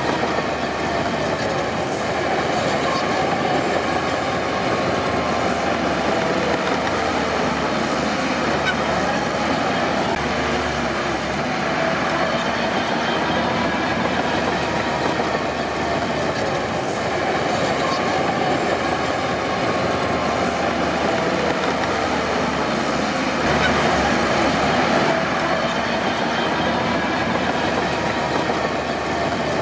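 Crawler bulldozer working: the diesel engine runs steadily under the clank of its steel tracks, with wavering squeals from the track running gear.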